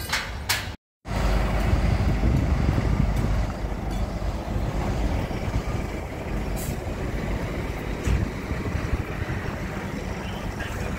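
Steady low rumble of a heavy vehicle or site machinery running, after the sound cuts out briefly about a second in.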